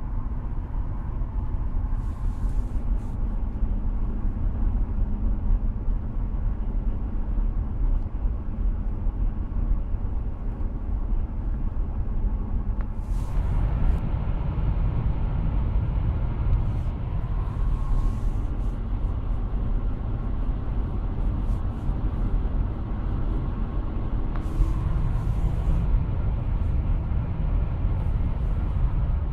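Cabin noise of a Lexus LS400 cruising at about 130 km/h on winter tyres: a steady low rumble of tyres on the road and wind, with the 4.0 V8 turning around 2,500 rpm underneath. The rumble turns coarser about thirteen seconds in, with a few short hisses over it.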